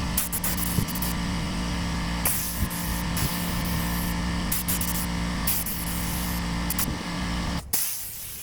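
Air spray gun hissing in repeated trigger pulls over a steady low hum, as primer goes onto bare sheet metal. The sound drops away suddenly near the end.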